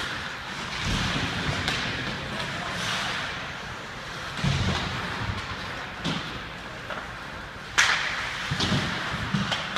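Ice hockey play in an indoor rink: skate blades scraping the ice, with scattered clacks of sticks and puck and a few dull thuds. A single sharp puck crack, about eight seconds in, is the loudest sound.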